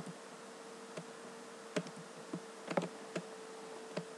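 Computer mouse clicking, about eight short clicks at irregular intervals (two close together near the middle) as edges are shift-click selected, over a faint steady electrical hum.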